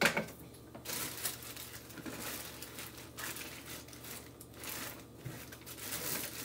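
Hands rummaging through stored craft supplies: packaging rustling and crinkling, with scattered light clatter and a sharper knock at the very start.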